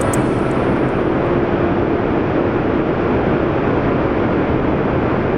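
Steady rushing roar of a high-pressure water release through a dam's outlet works, heard inside the concrete outlet tunnel.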